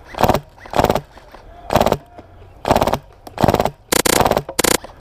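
Airsoft rifle firing a string of short rapid-fire bursts, about seven in all, the longest a quick rattle of shots about four seconds in.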